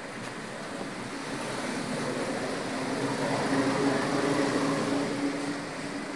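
Steady road traffic noise, with a vehicle's engine hum that swells about halfway through and fades again as it passes.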